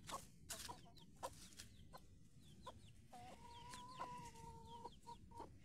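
Faint hen clucking and small high chirps, with scattered rustling and crackling of dry leaves.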